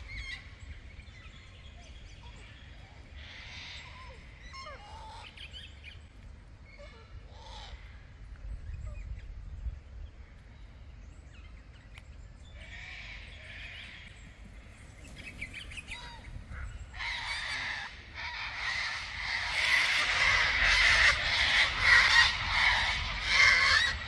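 A flock of sulphur-crested cockatoos screeching, their harsh calls scattered and faint at first, then building to a loud, dense chorus in the last several seconds.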